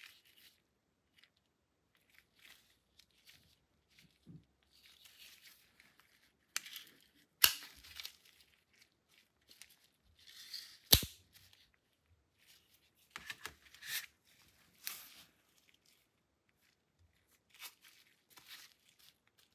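Handling noise from gloved hands working a Taurus TX22 .22LR pistol magazine: faint rustling and scuffing with scattered small clicks, and two sharp clicks about seven and a half and eleven seconds in.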